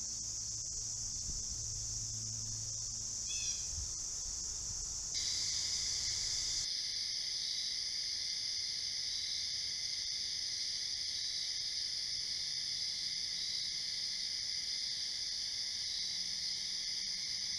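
Insects singing steadily: a high, even daytime buzz, then, after a cut about five seconds in, a night chorus of crickets at several steady pitches, one of them pulsing.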